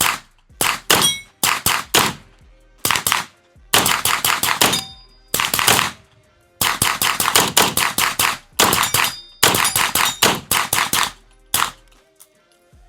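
Maxim Defense MD9 9mm firing, some single shots and several rapid strings of many shots a second, stopping about three-quarters of a second before the end.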